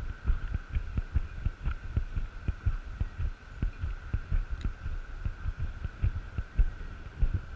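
Wind buffeting the microphone in irregular low thumps, with a faint steady high hum underneath.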